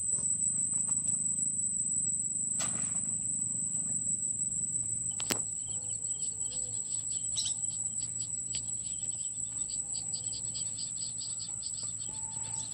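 Insects drone steadily at a high pitch over a low rumble of outdoor background noise, with a couple of sharp clicks. Quicker chirping joins in about halfway through.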